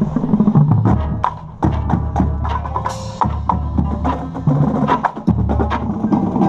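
Marching band brass and percussion playing: sousaphones and low brass hold long low notes, broken by short gaps, over many sharp percussion hits.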